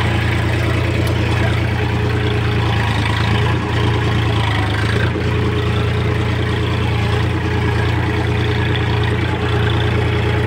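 Massey Ferguson 7250's three-cylinder 2700 cc diesel engine running at steady revs under load while pulling a cultivator, heard from the driver's seat.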